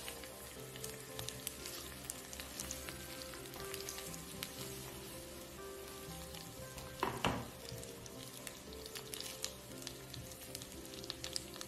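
Spaghetti and shrimp sizzling in a hot frying pan as they are tossed with tongs, a steady hiss with small crackles. A short, louder scrape about seven seconds in; soft background music runs underneath.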